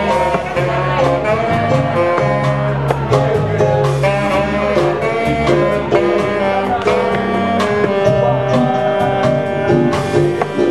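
Small jazz band playing live: saxophone, electric guitar, bass and drums, with sustained melody notes over a walking bass line and regular cymbal and drum strokes.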